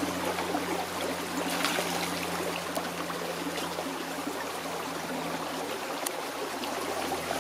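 A shallow, rocky stream running steadily over stones.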